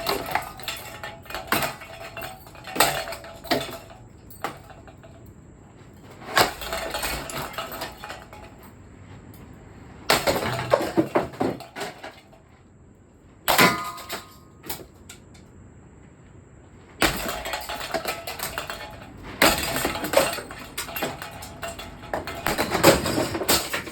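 A 1994 Hunter Piedmont ceiling fan being smashed: repeated clanging and crashing impacts on its metal body, in bursts of blows with short pauses between. The fan holds up against the blows.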